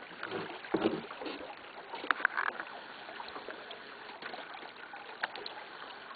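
Gentle water noise around a small fishing boat, with a few light clicks and knocks as fishing tackle is handled: two close together about two seconds in and one more about five seconds in.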